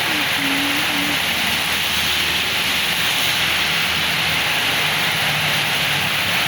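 Heavy rain falling steadily in strong wind, an even unbroken rush.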